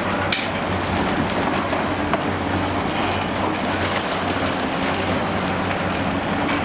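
Heavy demolition excavator's diesel engine running, with a dense clatter and crackle of concrete breaking and debris falling, and one sharp crack about a third of a second in.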